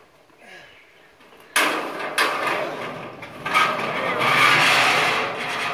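Corrugated steel roof sheet scraping and rattling as it is pushed up over the carport's steel frame: a sudden loud start about a second and a half in, a couple of sharp bangs, then a long scrape near the end.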